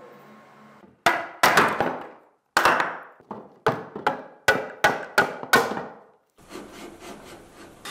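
Hammer blows, about ten sharp strikes at an uneven pace, each ringing briefly, knocking off a motor that is stuck to its mount with wood glue.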